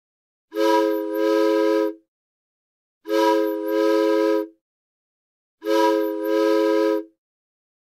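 Steam train whistle sound effect, blown three times: identical blasts about a second and a half long, each a chord of several notes with a brief dip just after it starts.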